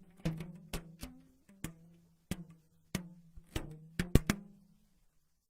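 Horror sound effect: about ten sharp, unevenly spaced wooden knocks over a steady low drone, with the loudest pair about four seconds in. It fades out about five seconds in.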